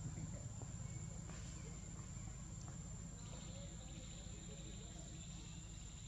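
Insects buzzing in the background: a steady high whine, joined about three seconds in by a second, lower buzzing chorus, over a low rumble.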